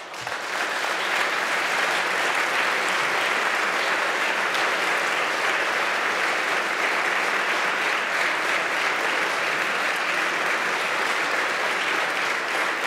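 A large audience applauding steadily. The applause builds over the first second and eases slightly near the end.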